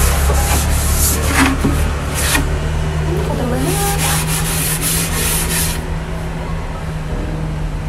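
Hands rubbing and wiping a table top with paper to clean it before painting: uneven spells of scratchy rubbing strokes, over a steady low hum.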